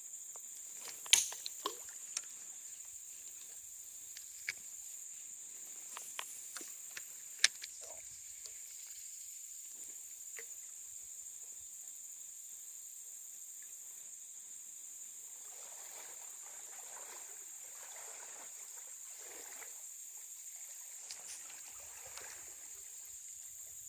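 Steady high insect drone with a handful of sharp clicks and knocks in the first eight seconds, the loudest about a second in and again near seven and a half seconds, then soft rustling noise toward the end.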